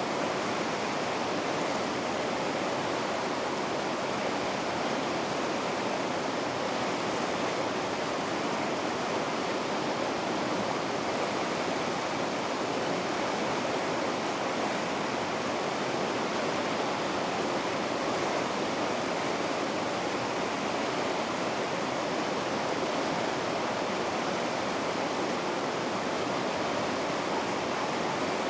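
River rapids rushing: a steady, even roar of white water with no breaks or changes.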